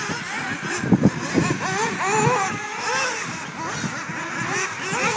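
1/8-scale off-road RC buggies racing, their small motors revving up and down in pitch over and over, several at once, as they accelerate and brake around the track.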